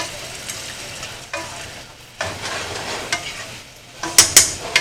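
Chicken broth sizzling in a hot cast iron skillet while it is stirred. A utensil clacks against the pan several times, most sharply near the end.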